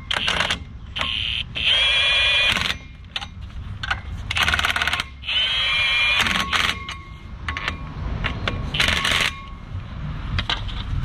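Cordless impact wrench run in several short bursts, each a high whine with a fast rattle, driving in the bolts that hold the new front brake rotor on the hub.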